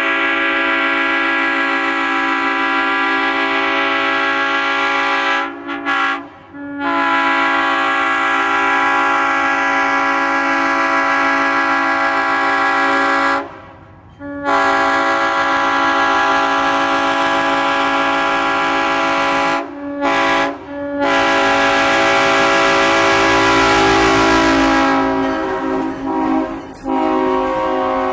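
Multi-chime locomotive air horn sounding a chord in a series of long blasts of several seconds each, separated by short breaks. Near the end one blast sags in pitch as it dies away, and another starts.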